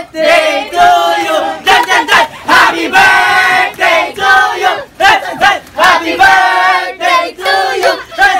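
A group of young people singing and cheering loudly together, many voices at once in long held notes.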